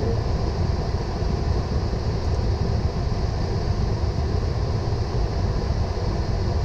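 Steady cockpit noise in a Boeing 777 taxiing after landing: a low rumble with an even hiss of airflow above it, unchanging throughout.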